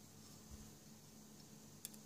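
Near silence: room tone with a faint steady hum, and a faint click near the end.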